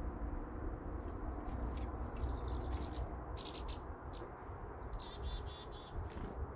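Small songbirds chirping around the feeders: high, thin chirps with quick twittering runs, one about a second and a half in and another about five seconds in, over a steady low rumble.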